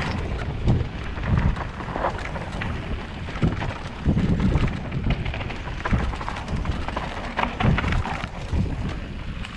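Wind buffeting the microphone of a camera on a mountain bike riding down a dirt singletrack, with tyre noise and irregular knocks and rattles from the bike going over the rough trail.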